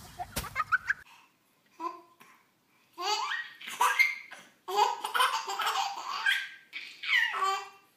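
A baby laughing in several bursts of belly laughs and giggles, starting about two seconds in.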